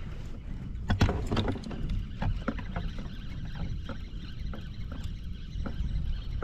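Kayak moving through the water: small splashes and knocks of water against the hull, over a steady low rumble, with a cluster of louder knocks about a second in.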